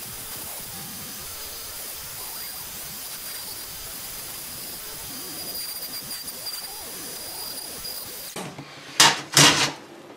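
Dremel flex-shaft rotary tool with a metal burr running steadily, a high whine over a hiss, as it roughs out a small carving in pine. It stops about eight seconds in, followed by two short loud noises a moment apart.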